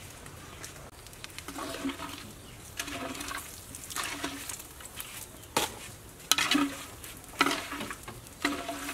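Hot oil frying and bubbling in a metal wok as a wire skimmer is stirred through it, with several sharp clinks of the skimmer against the wok in the second half.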